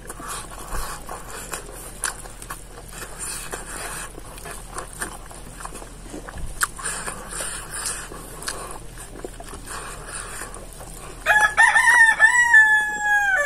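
A rooster crows once near the end, a long loud call that holds its pitch and then drops away. Before it there are faint eating sounds: fingers working rice on a plate, and chewing.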